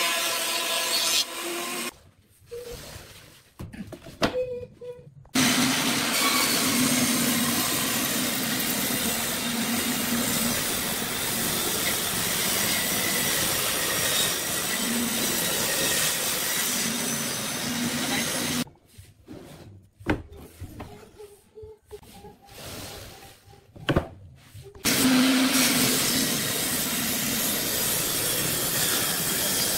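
A thickness planer runs as a board feeds through, then a table saw cuts boards in two long steady stretches. There are two short, quieter breaks, one a couple of seconds in and one past the middle.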